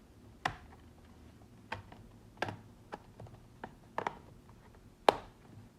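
Irregular plastic clicks and taps as the laptop's bottom access cover is handled and fitted back into place, about seven in all, the loudest snap about five seconds in.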